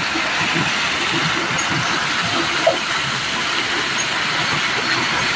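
Swollen stream water rushing and churning as white water out of a culvert: a steady rush of water.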